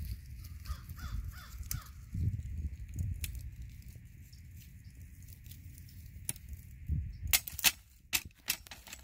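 A bird cawing several times in the first two seconds over a low rumble of wind on the microphone, then a quick run of sharp clicks and knocks near the end.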